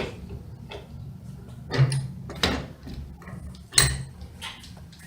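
Small metal parts of an angle grinder being handled and taken apart by hand: a few sharp clinks and knocks, the loudest about two and four seconds in, with lighter clicks between them.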